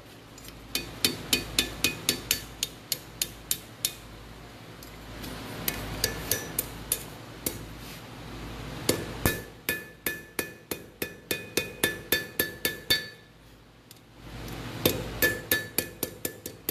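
Blacksmith's hand hammer striking hot iron on an anvil in runs of about three blows a second, with short pauses between runs, each blow ringing.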